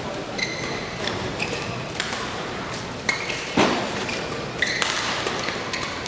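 Badminton rally: several sharp racket strikes on the shuttlecock, the loudest about three and a half seconds in, mixed with short high squeaks of players' shoes on the court mat.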